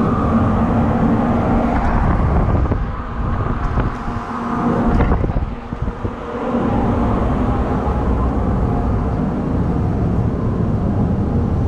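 Steady hum of a battleship's below-deck ventilation fans, with a low tone held underneath. It dips quieter for a few seconds in the middle, then comes back up.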